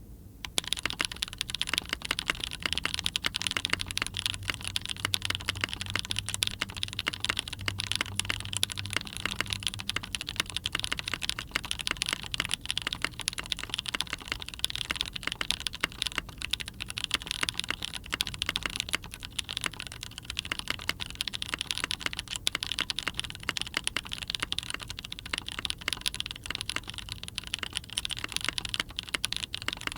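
Continuous fast typing on a mechanical keyboard with factory-lubed Gateron Blizzard tactile switches in an aluminium plate, under Cherry Milkshake keycaps: a dense, steady stream of keystrokes starting about half a second in.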